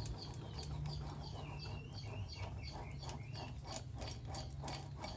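Honda Beat FI engine internals turned slowly by hand, giving a rough, gritty ticking about four times a second: the sign of a worn, stiff bearing, though which bearing is not yet known.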